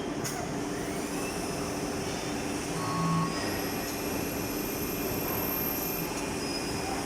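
Gildemeister MSL 42 CNC lathe running: a steady machine noise with low hums and a thin high whine, and a short louder tone about three seconds in.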